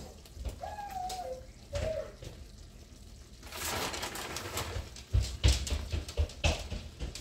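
Plastic bag of shaved Parmesan blend crinkling as the cheese is shaken into a skillet of cream sauce, with a spatula stirring and knocking in the pan, busiest in the second half. Two short gliding coo-like sounds come within the first two seconds.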